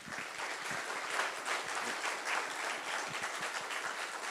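Audience applauding at the end of a conference talk, a dense clapping that starts suddenly and keeps going steadily.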